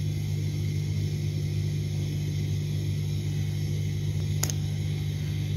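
Pot of vermicelli at a rolling boil on a gas burner: a steady low rumble, with one short click about four and a half seconds in.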